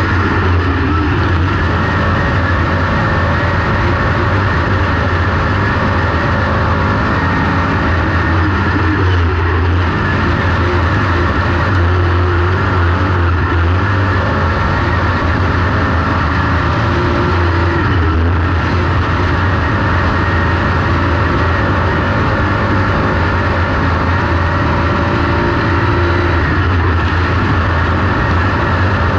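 Semi late model dirt track race car's V8 engine running hard under racing load, heard from inside the car as a steady, loud drone that rises and falls a little every few seconds.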